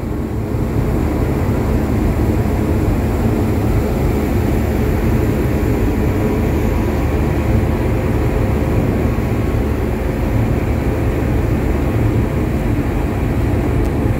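Car ferry under way, a steady low drone from its engines with no change in pitch or level.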